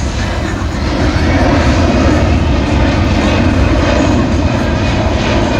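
Four turbofan engines of a C-17 Globemaster III airlifter, a steady, loud jet noise as the aircraft flies its demonstration, swelling a little about a second in.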